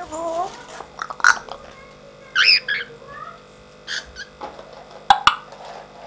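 African grey parrot vocalizing: a short gliding whistled call at the start, then scattered sharp clicks and a few brief high calls.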